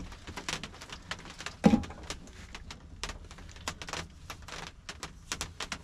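Camp coffee gear being handled on a cooler lid: a run of small clicks and knocks, with one louder knock a little under two seconds in.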